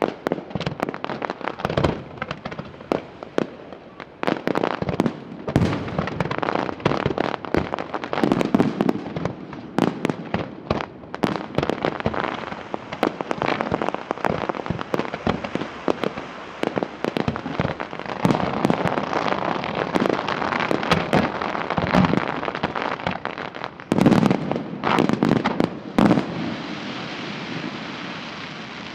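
Aerial fireworks display: shells bursting in a rapid series of sharp bangs over continuous crackling. A dense, loud cluster of bangs comes about 24 seconds in, then the crackle dies away near the end.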